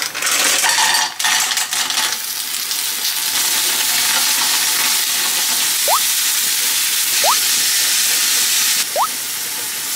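Clams in their shells tipped into a pan of hot oil and garlic, shells clattering against the pan, then a steady loud sizzle as they fry and are turned with tongs. Three short rising chirps sound in the second half.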